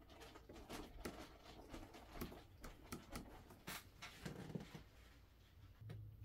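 Faint handling noises of small items on a desk: soft taps, clicks and rustles, with a sharper click about three and a half seconds in.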